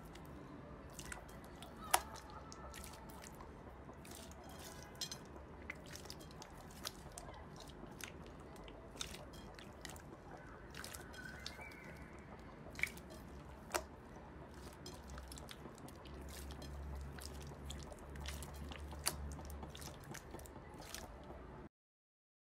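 Hands kneading and squeezing clear slime in a glass bowl: irregular soft, wet pops and clicks over a low steady hum. The sound cuts off near the end.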